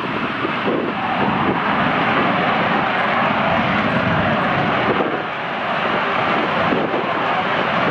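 Jet roar from a pair of JAS-39 Gripen fighters' Volvo RM12 turbofans running up on the runway ahead of the takeoff roll. It is a loud, steady rushing roar with a faint high whine, swelling about a second in.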